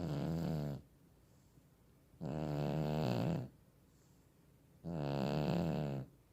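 A sleeping cat snoring: three snores in a regular rhythm, each lasting a little over a second, one about every two and a half seconds, with near quiet between them.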